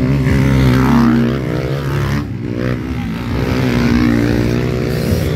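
Motocross bike engine revving hard as the bike rides past and away, its pitch climbing and falling with the throttle and gear changes.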